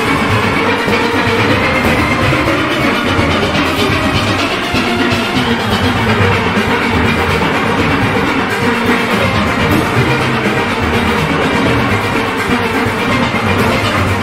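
A full steel orchestra playing: many steelpans together over a steady drum and percussion beat.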